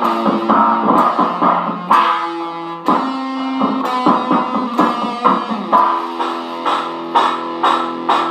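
Gold-top Les Paul-style electric guitar played through a Fender combo amp: picked single notes and chords ringing out, with a new note struck about every half second to a second.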